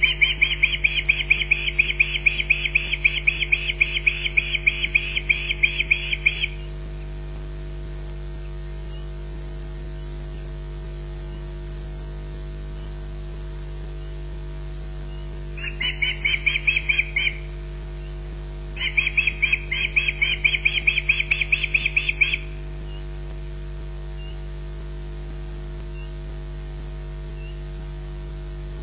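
Osprey warning chirps: fast runs of high, evenly repeated chirps, about five a second, in three bouts, the first about six seconds long and two shorter ones past the middle. They are the alarm given at corvids pestering the nest.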